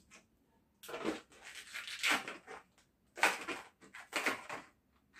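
Latex modelling balloon squeaking and rubbing as it is twisted by hand, in several stretches starting about a second in.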